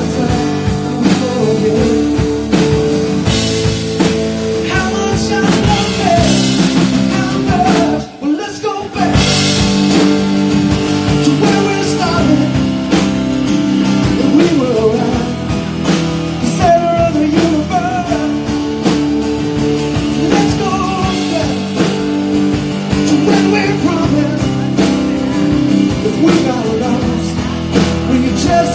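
Live rock band playing: a man singing over strummed acoustic guitar, drum kit, bass and keyboard. The sound drops out briefly about eight seconds in, then the band carries on.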